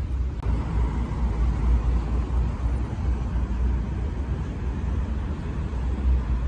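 Steady low rumble of outdoor background noise, with a fainter hiss above it.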